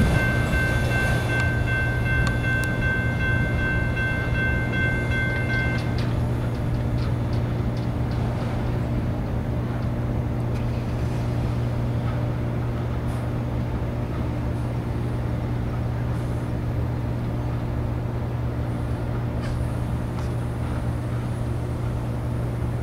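Steady low rumble of a Norfolk Southern autorack freight train rolling away, easing slightly as it recedes. A distant locomotive horn chord sounds with it and cuts off suddenly about six seconds in.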